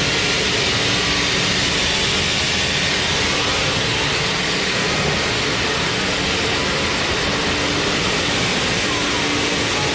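Sawmill machinery running: a loud, steady noise with a constant hum underneath.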